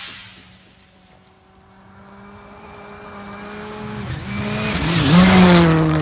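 A modern rally car approaching at speed on a special stage: the engine note grows steadily louder, dips in pitch twice as the driver lifts or shifts, and peaks about five seconds in with a rush of tyre noise as the car arrives.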